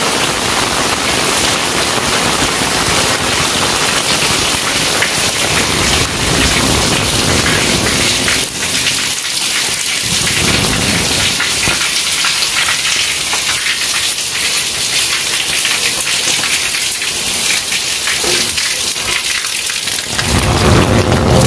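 Heavy rain pouring steadily onto paved ground and walls, with low rumbles of thunder: one about ten seconds in and a louder one near the end.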